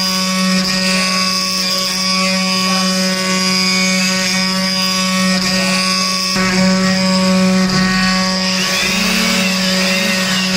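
CNC wood-carving machine running, its spindle motor giving a steady whine while the cutter works the wood. The cutting noise grows heavier about six seconds in.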